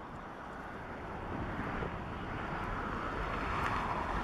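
Airbus A340-300's four CFM56 turbofan engines at takeoff power as it climbs away: steady jet noise growing a little louder toward the end, with wind buffeting the microphone underneath.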